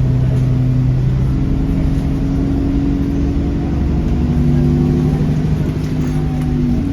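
Alexander Dennis Enviro400 Trident double-decker bus's diesel engine running under way, a steady low pitched drone whose pitch steps up or down a couple of times as it pulls.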